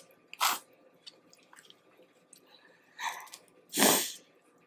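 A woman sniffing once about half a second in, then sneezing near the end, the sneeze the loudest sound. Her nose is running from very spicy food.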